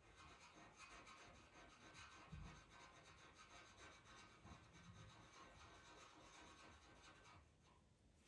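Pastel pencil stroking across PastelMat paper: faint, quick, scratchy shading strokes that stop about seven and a half seconds in.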